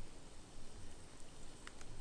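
Faint crackling of a campfire under a cast-iron Dutch oven, with a couple of sharp pops near the end.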